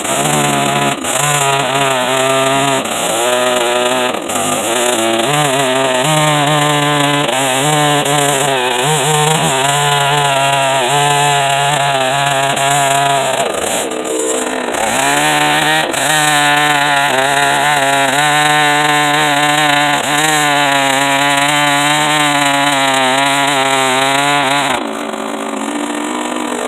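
Small two-stroke chainsaw fitted with a worn, small-cutter chain, running hard while ripping red oak. Its pitch wavers with the load, sags briefly about halfway through and picks back up, then the engine note falls away and goes quieter near the end.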